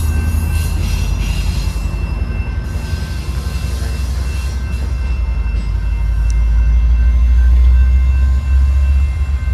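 Railroad crossing warning bell ringing steadily over the low rumble of a passing passenger train.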